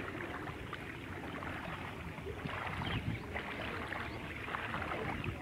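Feet wading through shallow floodwater: uneven sloshes and splashes of steps.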